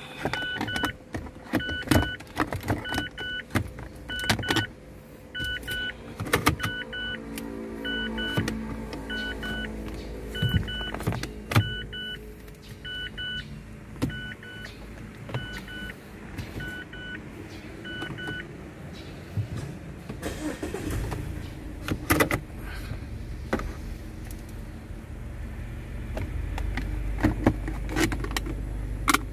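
A car's electronic warning chime beeping about once a second, stopping about two-thirds of the way through. Over it come sharp clicks and knocks of plastic interior trim around the automatic shifter being handled and pressed into place.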